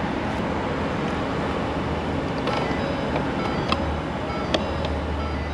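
Ford F-250 pickup's engine idling steadily, heard from the open-top cab, with a couple of faint clicks in the second half.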